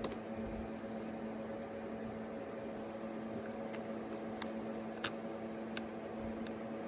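Steady machine hum, with a few faint, short clicks scattered through it.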